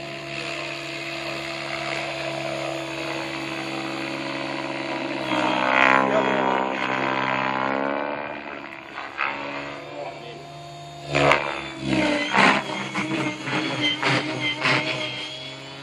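Gaui X7 electric RC helicopter flying overhead: a steady buzzing whine of its motor and rotors that swoops down and back up in pitch about six seconds in. A few short, sharp noises come near the end.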